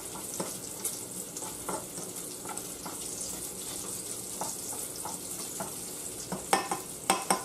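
Bacon sizzling as it fries in a pot, with the scrape and clink of a fork stirring it. A few louder clinks come near the end.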